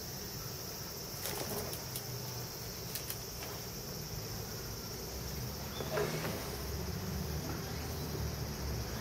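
Steady, high-pitched chirring of insects, with a few faint clicks.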